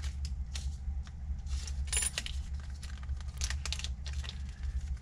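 Small steel valve cotters (keepers) for a Honda CRF450 cylinder head clicking and clinking as they are handled out of a small parts packet. There are irregular light clicks, a sharper metallic tink about two seconds in, and a steady low hum underneath.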